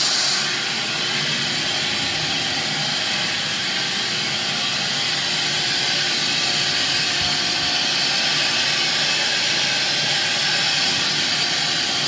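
Ridgid 16-gallon wet/dry shop vac with a 6.25-peak-horsepower motor running at full power just after switch-on, a steady rush of motor and suction, its hose being drawn over carpet. It is loudest in the first half second, then settles to an even level.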